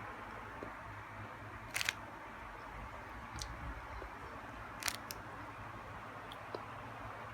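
A few sharp clicks over a steady low hiss and hum, the loudest a quick double click about two seconds in.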